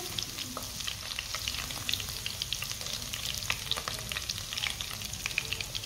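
Finely chopped garlic sizzling and crackling in hot ghee in a wok, stirred with a silicone spatula.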